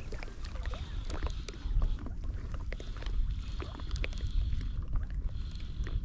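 Water splashing and sloshing close to a float tube while a large pike, about a metre long, is being fought, with many small sharp splashes over a low wind rumble on the microphone.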